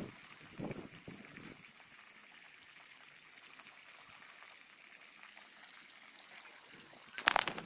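Water from a garden hose trickling and running over wet soil, a steady faint hiss. A short, louder noise comes near the end.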